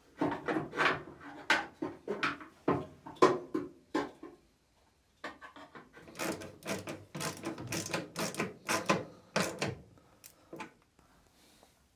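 Irregular clicks and knocks of a screwdriver and a metal horn bracket against the car's steel front panel as a horn is screwed into place, with a short pause midway. The sounds die away near the end.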